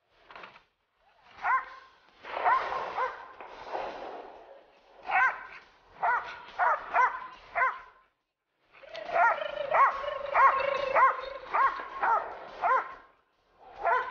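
A dog barking in several short runs of sharp barks, with the longest, densest run in the second half.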